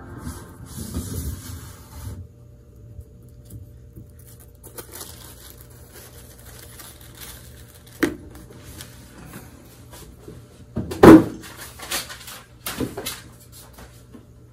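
Hands handling MacBook packaging: the white cardboard box, paper insert and cable tray rustled and knocked, with a sharp knock about eight seconds in and a louder clatter about eleven seconds in.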